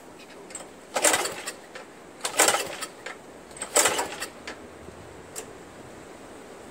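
Three pulls on the recoil starter of a Craftsman 522 snowblower's Tecumseh engine, each a short rasp of rope and cranking engine about a second and a half apart. The engine does not catch.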